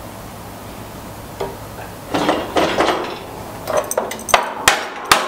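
Wooden support boards and metal parts clattering and knocking as the boards are pulled out from under an air compressor hanging from an engine hoist. The clatter is irregular, starts about two seconds in and ends in several sharp knocks.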